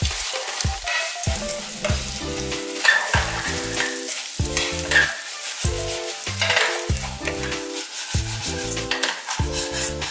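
Small dried anchovies poured into hot oil with fried sliced garlic and almonds, then tossed and stirred in the pan: sizzling with a dry crackle and rustle.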